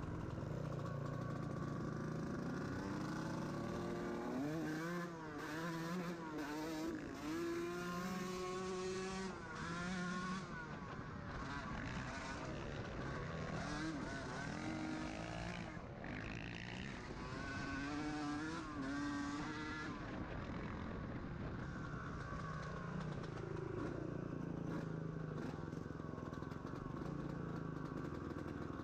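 Dirt bike engine running under way, its pitch repeatedly rising and falling as the rider accelerates and eases off.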